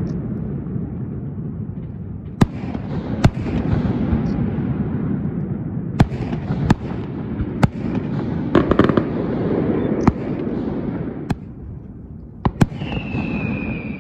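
Aerial fireworks bursting: a series of sharp bangs over a continuous low rumble of echoing booms, with a dense burst of crackling a little past halfway. Near the end a long high tone falls slowly in pitch.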